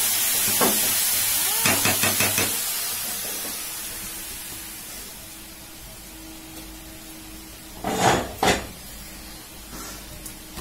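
A metal spoon clinking and scraping against a metal rice pot on a gas stove, over a steady hiss, with a quick run of clinks about two seconds in. After the hiss fades the room goes quieter, and two loud knocks come about half a second apart.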